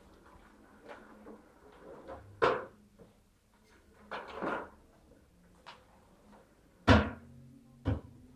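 Plastic hamster exercise ball being batted about by a kitten, rolling on a hard floor and knocking into furniture: a few separate knocks, a brief rumble of rolling about four seconds in, and the loudest knock about seven seconds in.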